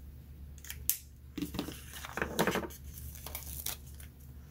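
Paper sticker sheet being handled and a sticker peeled off its backing: a few light clicks and taps, with a stretch of crinkling paper in the middle.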